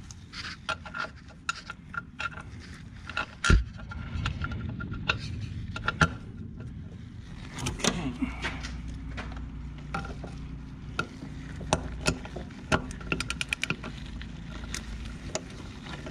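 Hand tools working on a car's brake master cylinder: a ratchet wrench clicking and metal clinking while the master cylinder's mounting nuts are loosened, with a fast run of ratchet clicks near the end. About three and a half seconds in, a single loud knock as the magnet-mounted camera is bumped, over a low steady hum.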